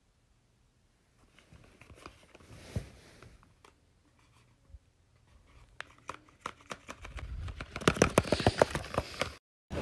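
Paper crinkling and rustling in scattered crackles that grow louder and denser into a burst of sharp crackles, then cut off abruptly near the end.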